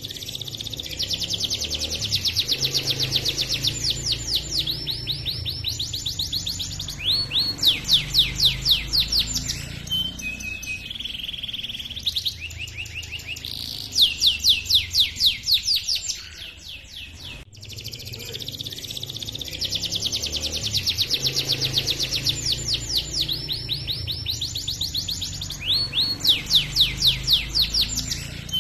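Male domestic canary singing a long song of fast rolling trills and rapid repeated 'cuit cuit' chirps. The same stretch of song starts over about two-thirds of the way through.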